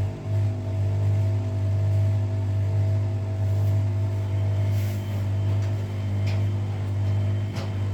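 Washing machine running with a steady motor hum as the drum turns. A few light clicks or knocks sound in the second half.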